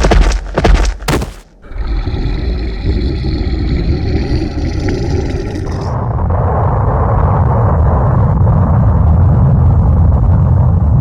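Animation sound effects: three loud hits in quick succession, then a steady droning noise with several held tones. About six seconds in, a loud, continuous rumble takes over, like a sustained explosion.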